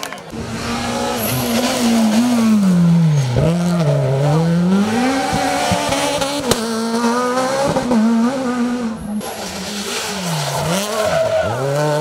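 Renault Clio rally car's engine revving hard through a hairpin. The pitch drops steeply as it brakes and shifts down, climbs back and holds, then dips twice near the end before rising again as it pulls away.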